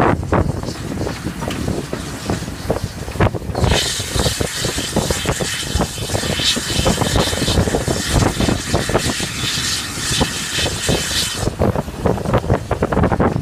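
Steam-hauled heritage train running, heard from a window just behind the locomotive's tender: a heavy rumble with wind buffeting the microphone. About four seconds in a loud, high hiss starts and lasts about eight seconds.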